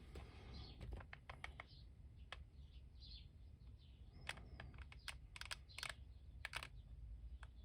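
Faint, irregular small clicks and taps of a plastic action-figure backpack and a hot glue gun being handled while more glue goes on, the clicks coming thicker in the second half.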